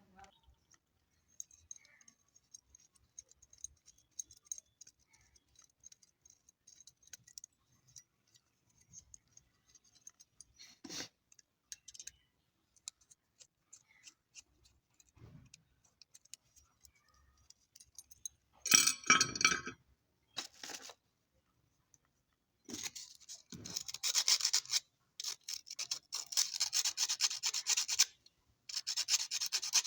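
Light clicks and clinks of small parts being handled while an electric iron is worked on. Partway through there is a short, louder clatter, and near the end come a few seconds of steady scraping or rubbing.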